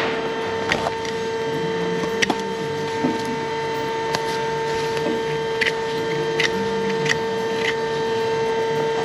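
A steady mechanical hum runs throughout, with a hoof knife paring the horn of a cow's claw in short, sharp strokes, about seven of them at irregular intervals. The knife is cutting away a deep sole fracture in the inner claw.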